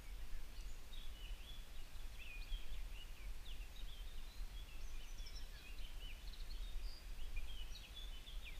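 Birds singing, a continuous run of quick, high chirps and twitters, over a low steady rumble.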